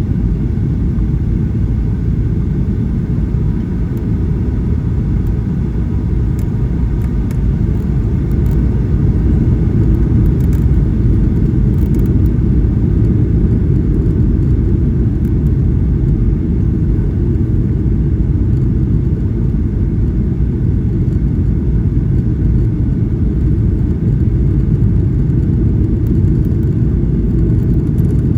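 Steady low rumble of a Boeing 737-800 in flight, its engines and airflow heard from inside the cabin. The rumble gets a little louder about eight seconds in.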